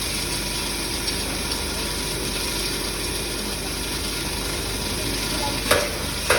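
Herb and chemical grinding machine running steadily with a dense, grainy noise, and two sharp knocks near the end.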